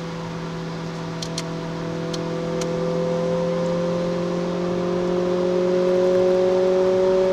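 Renault Clio RS 200's 2.0-litre four-cylinder engine pulling under load, its note rising slowly as the revs climb. A few sharp ticks come in quick succession about a second to two and a half seconds in.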